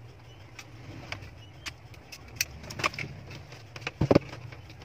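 Small clicks and knocks as a Fluke digital multimeter and its test leads are handled, with a louder double knock about four seconds in as the meter is set on the desk. A steady low hum runs underneath.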